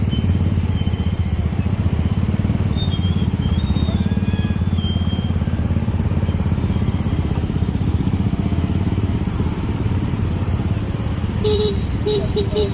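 An engine running steadily and close, most like a motorcycle, with a fast, even low rumble. A few short repeated tones sound near the end.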